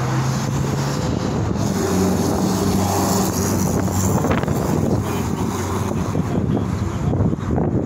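Steady road-traffic noise with low engine hum, and wind rushing on the phone's microphone.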